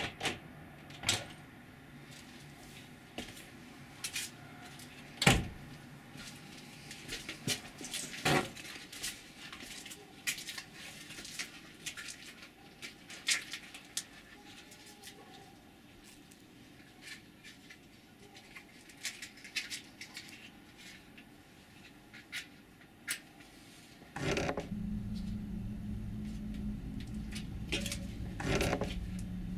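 Scattered clicks and knocks of a person moving about and handling hard objects, one sharp knock louder than the rest about five seconds in. A steady low hum sets in about 24 seconds in and continues.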